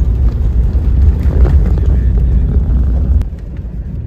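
Low, steady rumble of a 4x4 vehicle driving, heard from inside its cabin. It drops in level about three seconds in.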